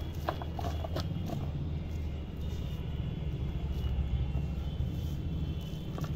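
Handfuls of soil mix dropped into a plastic pot, with a few light clicks and rattles of grit and pebbles about a second in. A steady low rumble runs underneath throughout.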